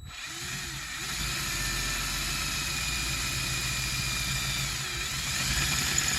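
Electric drill running steadily with a motor whine, drilling out a rivet in a steel bracket; it starts abruptly and keeps going.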